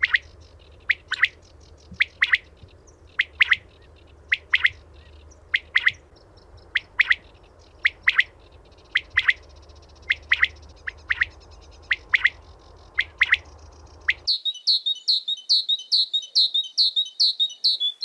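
Quail calling in sharp, falling chirps, mostly in pairs about once a second, over a low steady hum. About fourteen seconds in, this gives way to a great tit's fast run of chirps, three or four a second.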